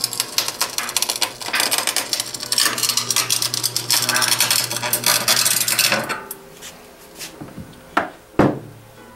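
Sunstone AC 5.0 kVA resistance welder seam welding steel sheets through a rolling copper wheel electrode: a continuous crackling sizzle over a steady low hum, cutting off suddenly about six seconds in. Two sharp knocks follow near the end.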